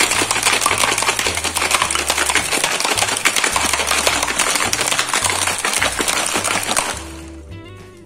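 Ice cubes rattling hard inside a stainless steel cocktail shaker shaken vigorously, a loud, rapid clatter that stops about seven seconds in. Soft background music with held notes follows.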